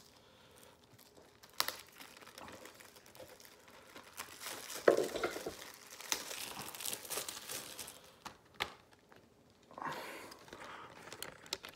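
Plastic wrapping on a DVD case crinkling and tearing as it is worked open by hand, in irregular spells, busiest from about four to eight seconds in, with a few sharp clicks.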